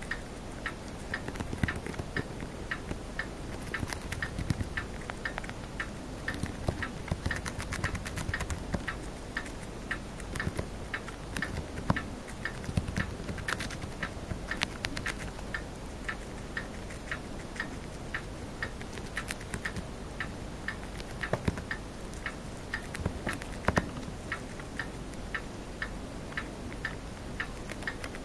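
Chinese dwarf hamster chewing a crisp green leaf: a long run of small, sharp crunching clicks, a few a second, close to the microphone.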